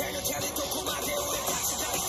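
Anime soundtrack music playing from a tablet, a steady dense musical texture.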